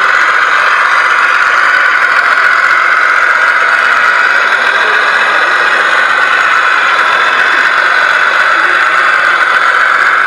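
Radio-controlled model MAN truck with an electric drive giving a loud, steady high-pitched whine from its motor and gears, with a little rattle under it.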